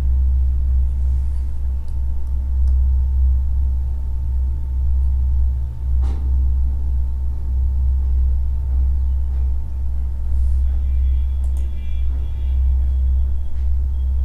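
Steady low background rumble with a faint steady whine above it, and a single click about six seconds in.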